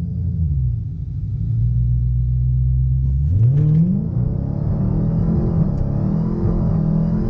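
Dodge Challenger Hellcat's supercharged 6.2-litre Hemi V8, heard from inside the cabin, during a full-throttle 0-60 mph launch. The engine holds a steady low note for about two seconds, then at about three seconds in it revs up sharply as the car launches. It then keeps climbing and dropping in pitch as it pulls through the gears.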